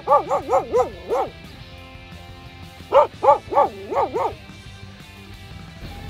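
Jindo dog barking in two quick runs of about five or six sharp barks each, the second run about three seconds in, with music playing faintly underneath.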